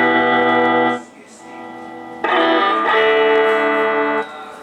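Electric guitar played through a Fender Pro Junior tube amplifier as a test after its repair. One chord rings and is stopped about a second in. Another chord is strummed a little past two seconds, held for about two seconds and then cut off.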